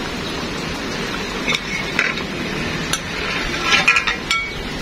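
A metal spoon clinks and scrapes against a ceramic bowl and a metal wok as peeled balut duck eggs are tipped into the sauce. There are several sharp clinks, a few briefly ringing, and most of them come in the second half, over a steady hiss.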